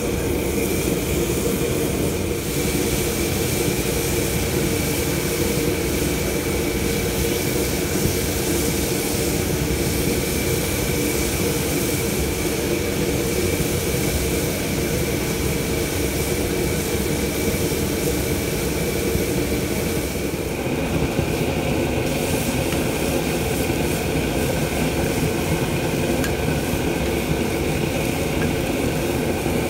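Steady loud roar of a commercial kitchen range and its ventilation, with a constant high whine running through it; its tone shifts slightly about two-thirds of the way through.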